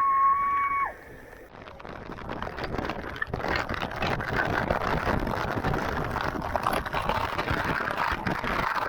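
Rushing, splashing river water, swelling up after about a second and a half and then holding steady. A steady high whistled note ends about a second in.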